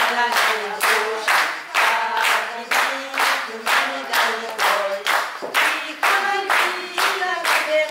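Two women singing a song together into a microphone, with people clapping along in a steady beat, a little over two claps a second.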